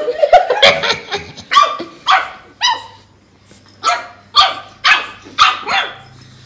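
Pug barking in play at another pug: about ten short barks in bunches of two or three, with a pause of about a second in the middle.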